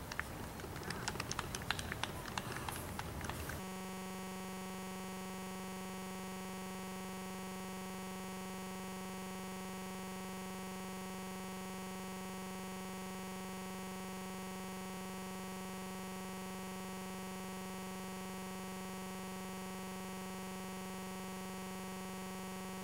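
A sustained synthesizer chord, held unchanged as DVD-menu background music. It takes over abruptly a few seconds in from outdoor sound with scattered clicks.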